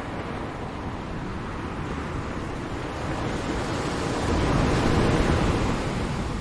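Ocean waves breaking on a shore: a steady wash of surf that swells into a louder wave about four seconds in, then eases off.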